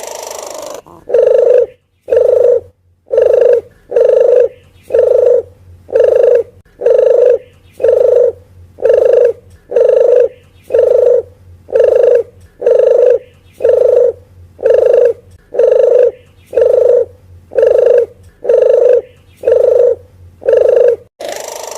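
Bird-lure recording of a puter geni dove call: a single short, pitched coo repeated at an even pace about once a second, some twenty times, with a faint low hum underneath.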